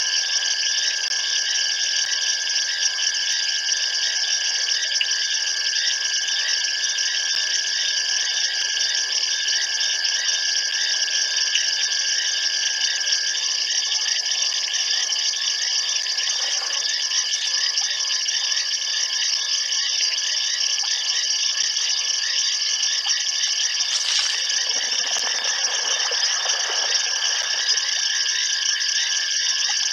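Steady night-time chorus of calling insects at a waterhole: a dense, continuous high trilling with a constant whistle-like tone under it. Near the end a lower rustling noise comes in for a few seconds.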